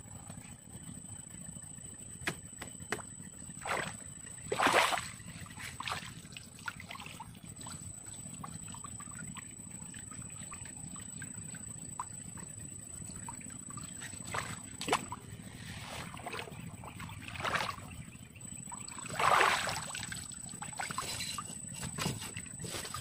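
Water sloshing and splashing in a few short bursts, the loudest about five seconds in and near twenty seconds, with scattered knocks and clicks over a steady low background noise.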